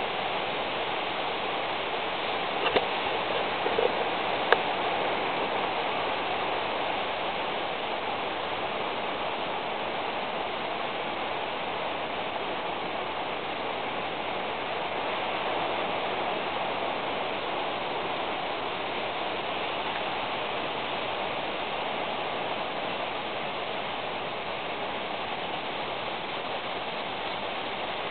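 Steady rain falling, an even hiss throughout, with a few small clicks or knocks about three to four and a half seconds in.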